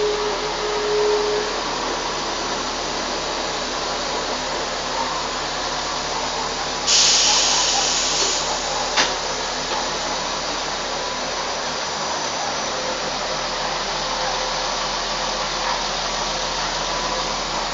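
Renfe class 599 diesel multiple unit standing at the platform with its engine running steadily. A steady squeal cuts off after a second or so. About seven seconds in there is a loud burst of compressed-air hiss lasting about a second and a half, followed by a sharp click.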